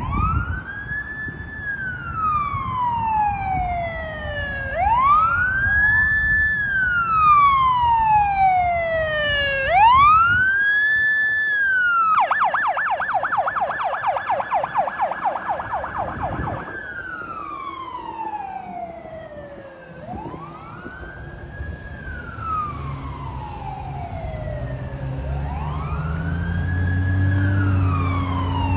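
Federal Signal Touchmaster electronic siren on a 2001 Spartan/Luverne fire engine running a wail that rises quickly and falls slowly, about every five seconds. It switches to a fast yelp for about four seconds midway, then goes back to the wail. A low engine and traffic rumble runs underneath.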